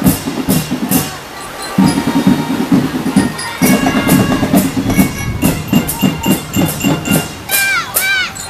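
Children's marching drum band playing: marching drums beat a steady rhythm under sustained melody notes from pianicas (keyboard melodicas). The drums break off briefly about a second and a half in, and near the end a short tone slides down and back up.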